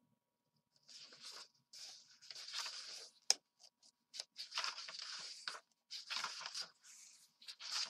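Paper rustling and crinkling in irregular bursts as book pages are handled, with one sharp click about three seconds in.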